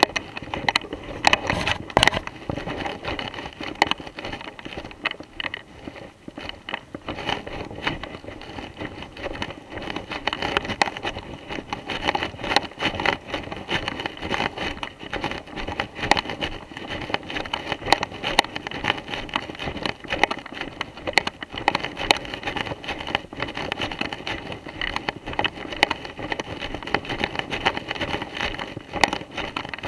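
Footsteps walking through thick dry leaf litter: a continuous rustling crunch with frequent sharp crackles.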